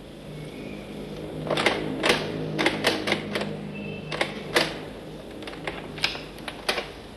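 A run of sharp, irregular clicks and knocks, two to four a second, behind a closed wooden door, over a faint steady hum.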